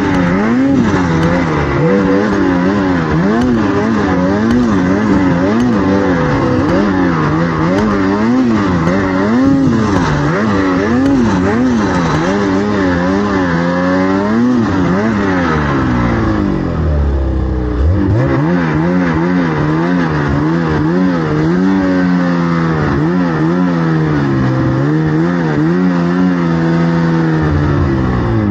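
Snowmobile engine revving up and down as the rider works the throttle through deep snow, the pitch rising and falling about once a second. About two-thirds of the way through, the revs drop low briefly, then climb again.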